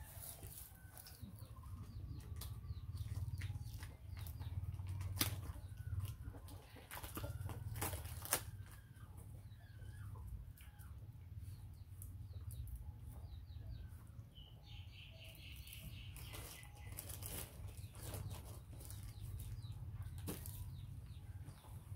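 A plastic-wrapped pack of small milk cartons being handled and pulled apart: scattered clicks and crinkling rustles over a steady low hum, with faint short chirping calls and a brief higher-pitched call about two-thirds of the way through.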